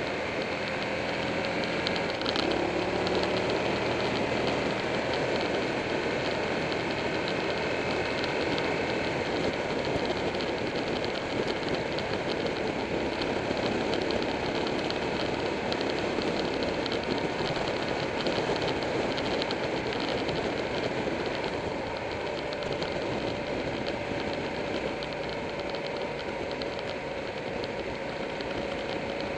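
Steady wind rush on the microphone of a camera riding on a motorcycle at road speed, with the motorcycle's engine running underneath. Its engine note rises briefly about two seconds in.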